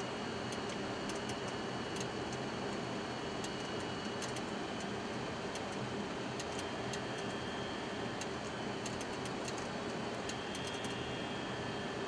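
Steady flight-deck noise of a Boeing 737-200 on final approach: an even rush of airflow and engine noise with a faint steady hum, flecked with scattered light ticks.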